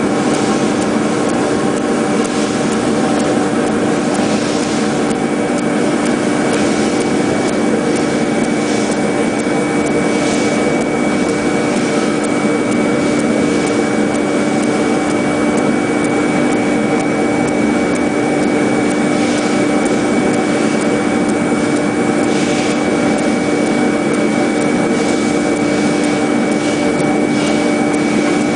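CNC contour foam cutting machine with a wire blade running: a steady, loud mechanical hum with a constant thin high whine above it and a few brief scratchy sounds.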